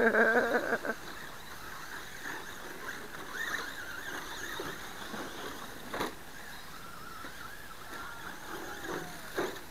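Small radio-controlled cars racing on a dirt track, their motors giving faint whines that rise and fall as they speed up and slow. A short loud shout at the very start and a single knock about six seconds in.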